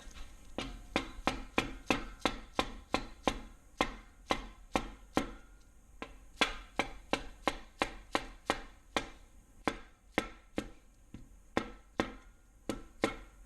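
Steady run of sharp, light taps, about three a second, as the main bearing caps are seated onto the ARP main studs of the LS engine block.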